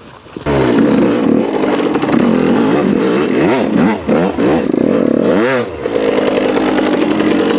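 Suzuki dirt bike engine running hard under the rider, coming in abruptly about half a second in, with the revs rising and falling sharply twice.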